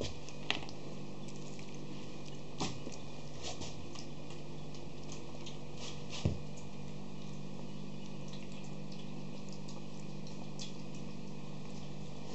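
Schipperke puppies lapping milky food from an enamel bowl: soft wet smacking with scattered sharp ticks, the clearest about half a second in, again near three seconds and about six seconds in. A steady low hum runs underneath.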